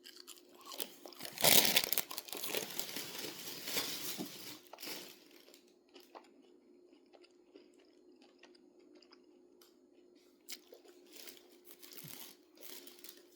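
Crunchy bite into a fried cheese curd about a second and a half in, then a few seconds of crunchy chewing that fades to quiet chewing and small mouth clicks, over a faint steady hum.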